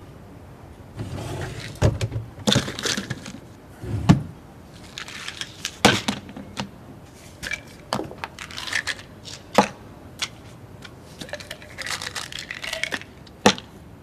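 Irregular clicks, taps and short rustles of handling: a small plastic bottle being picked up and opened, and small round tablets tipped out of it into a hand.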